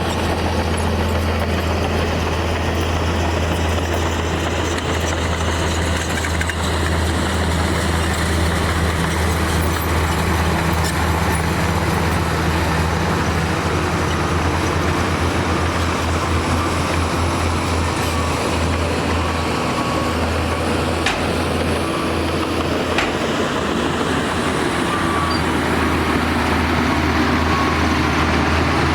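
Heavy diesel engine of earthmoving machinery running steadily with a deep, constant drone, with a few faint clicks in the second half.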